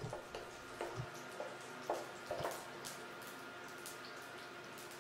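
Mustard, cumin and fenugreek seeds faintly sizzling and crackling as they splutter in hot sesame oil in a pan. There are a few soft knocks from the spatula stirring them.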